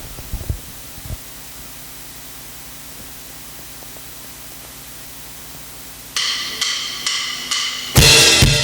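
A few low thumps in the first second, then steady faint hiss; about six seconds in, four evenly spaced high metallic ticks like a hi-hat counting in, and near the end the drum kit comes in with the backing track.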